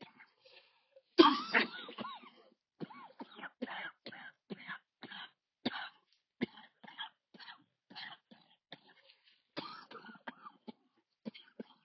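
Wheezing coughs and throat-clearing sounds: many short, harsh bursts in quick, irregular succession. The loudest comes about a second in and carries a whistling wheeze.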